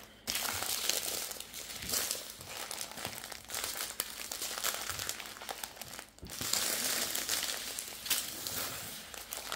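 Small plastic bags of diamond-painting drills crinkling as they are folded and squeezed together in the hands, with a brief break about six seconds in.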